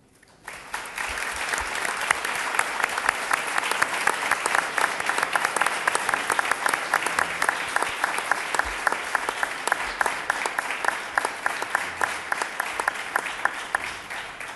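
Audience applauding, a dense patter of many hands clapping that starts about half a second in and tails off near the end.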